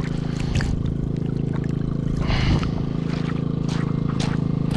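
Water splashing and trickling over a steady low mechanical hum, with scattered small clicks and one louder splash about halfway through.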